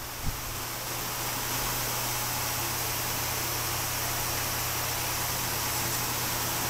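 Steady background hiss with a low, even hum underneath and no distinct events.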